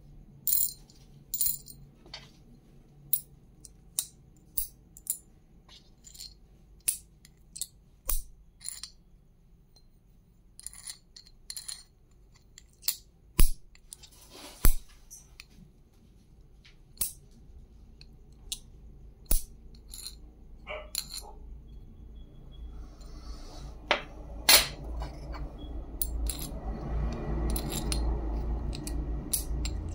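Sharp metallic clicks and taps as a small silver coin is knocked and pressed against a large copper coin, irregular and often a second or two apart. A low rumbling noise swells up over the last several seconds.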